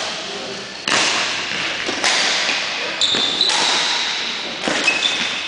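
Badminton rally: several sharp racket strikes on the shuttlecock about a second apart, with short high squeaks of shoes on the sports-hall floor in the middle and near the end, over a constant hiss of hall noise.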